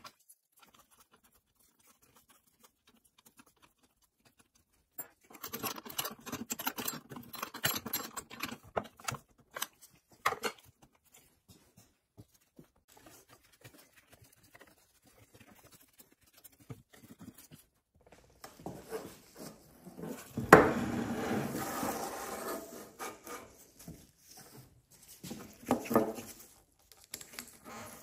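Hand tools and small chainsaw parts handled on a workbench. Bursts of light clicking and scraping come and go, with one louder knock and rattle about twenty seconds in.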